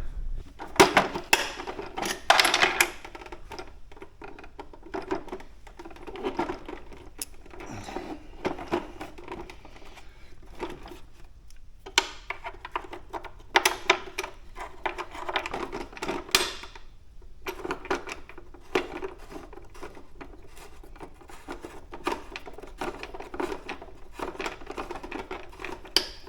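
Intermittent clicks, taps and light rattles of hands working on a motorcycle lower fairing, starting 10 mm bolts by hand and fitting the plastic pod and clamps into place.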